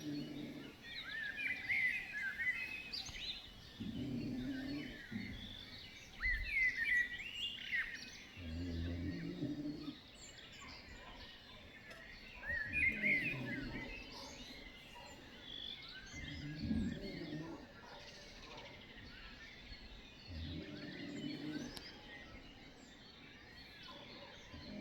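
A sleeping woman snoring, one low snore about every four seconds, while songbirds chirp and twitter in short phrases.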